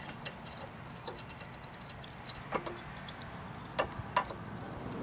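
Small metallic clicks and taps of a 7/64 Allen key working a set screw into an aluminum bushing, about five separate ticks spread over a few seconds.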